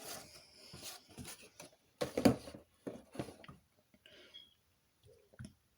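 Hard plastic LEGO models being handled and set down on a table: a scatter of irregular clicks and knocks, the loudest about two seconds in.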